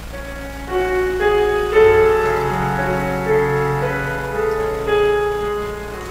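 Church keyboard playing a slow instrumental introduction, with several held notes sounding together and changing about once a second. It leads into the choir's sung Gospel acclamation.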